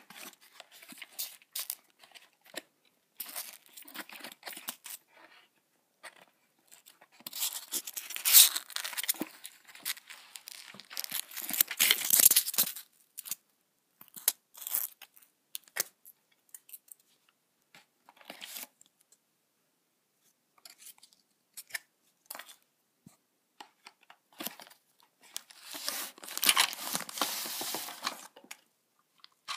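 A toy train's cardboard box being opened by hand: flaps pulled open and paper or tape tearing, with rustling and crinkling of packaging. It comes in bursts with scattered small clicks, the loudest about a quarter of the way in, just before halfway and near the end.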